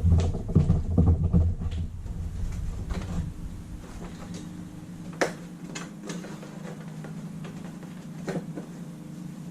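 Handling noise as wiring and switch parts are worked on: a low rumble for the first two seconds, then a few scattered sharp clicks and taps, the loudest about five seconds in.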